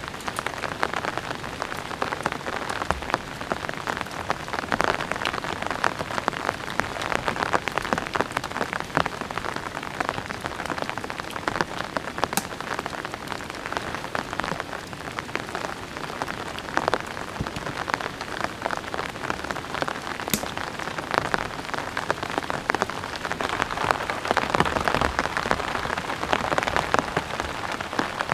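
Steady rain falling, with many individual drops striking close by.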